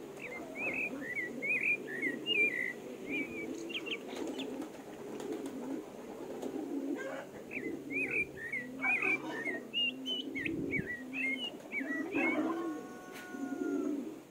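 Small birds twittering in two bursts of quick chirps over continuous low cooing. Near the end comes one drawn-out call with a slightly falling pitch.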